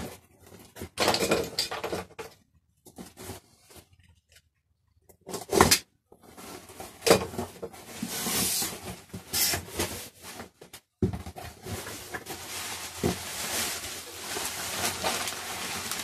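Cardboard box flaps and bubble wrap rustling and crinkling as packaging is pulled open by hand, with a loud thump about five and a half seconds in and a couple of short pauses.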